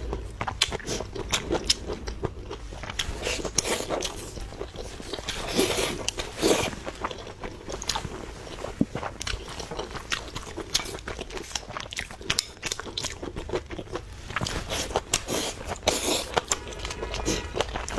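Eating up close: crisp biting and crunchy chewing of food, a dense run of short crackling crunches.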